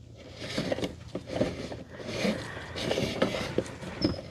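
Hands working fuel pump assembly parts back into place: scattered small plastic clicks and scrapes as a part catches on a clip and won't go back in.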